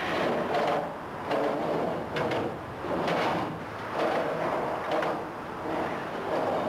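Scraping and shuffling of a bridge worker's body and gear against steel beams as she clambers along them, in uneven swells about once a second with a few sharp knocks.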